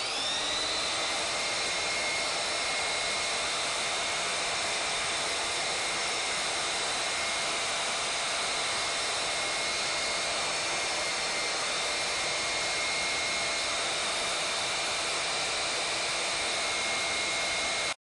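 Electric belt sander running steadily with no load, its abrasive belt spinning freely at full speed with the machine turned upside down for belt tracking: a steady whir with a high whine on top.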